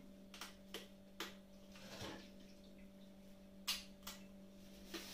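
Faint, short clicks and crinkles, about half a dozen, from a thin plastic bag of dry pasta being handled, over a steady low electrical hum.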